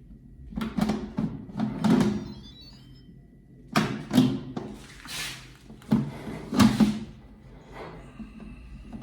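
A series of irregular knocks and clunks from cookware being handled, about eight in all.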